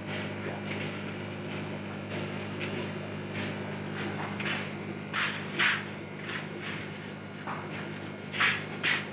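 A steady electric buzz from an aquarium air pump driving the tanks' sponge filters. A few short scuffing noises come about five seconds in and again near the end.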